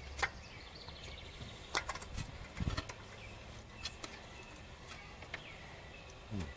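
Faint scattered clicks and knocks of hand tools refitting a spark plug in an engine bay, with one duller knock near the middle. Birds chirp in the background.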